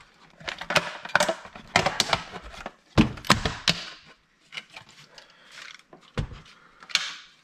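A Nintendo Wii console being pulled apart by hand: a run of plastic clicks, creaks and rattles as the shell comes off and the metal-clad internals are handled. A heavier thunk comes about three seconds in and another a little after six seconds.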